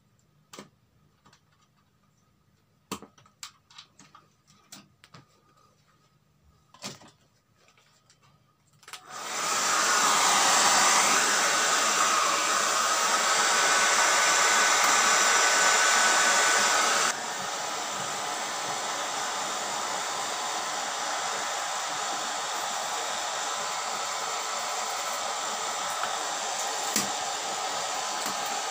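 Hair dryer blowing hot air along a TV's LED backlight strip to loosen its adhesive for removal. It switches on about nine seconds in and drops to a lower, quieter setting a little past halfway. Before it starts there are a few light clicks and taps from handling the strip.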